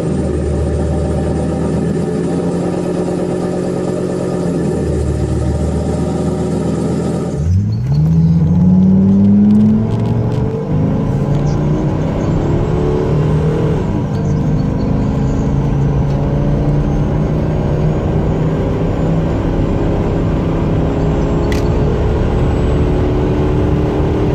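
Ford 6.8-litre V10 engine, first running steadily beside a truck's front wheel. About seven seconds in, the sound switches to a Ford Excursion's 6.8 V10 under hard acceleration, heard from the cabin: the pitch climbs, drops back at gear shifts about ten and fourteen seconds in, then rises slowly and steadily toward about 4,300 rpm.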